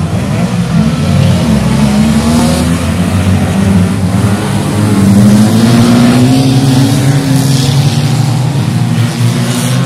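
A pack of 1600cc banger racing cars revving and accelerating past, several engines overlapping at once, their pitch rising and falling as they go by.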